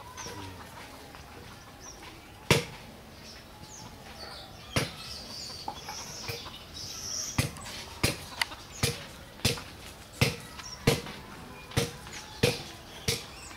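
Footsteps on dry, hard dirt, a few sharp steps at first and then a steadier walk of about one or two a second, with faint chicken clucks and bird chirps behind.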